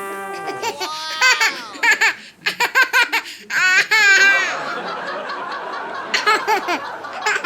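Several bouts of high-pitched laughter with a quickly wavering pitch.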